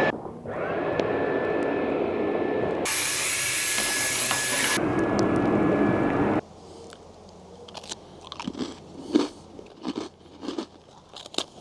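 A small motor spins up and runs steadily with a high whine for about six seconds, then cuts off suddenly; scattered light clicks and scrapes follow.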